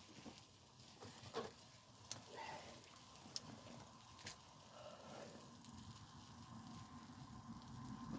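Wood fire crackling faintly, with a few scattered sharp pops, the loudest about three seconds in.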